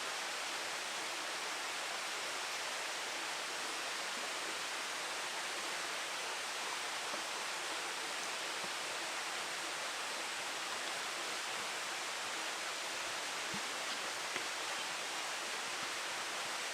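Steady, even rushing of flowing water, unchanging throughout.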